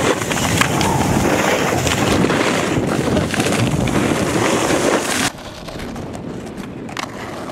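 Wind rushing over the microphone of a camera moving fast down a snow slope behind a snowboarder, mixed with the scrape of boards on snow. It cuts off abruptly about five seconds in, giving way to a quieter stretch with a sharp skateboard click near the end.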